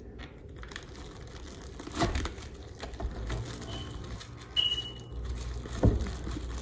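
Handling noise and two clunks as the fish goes into the oven, with two short high electronic beeps from the oven's controls near the middle, the second one longer.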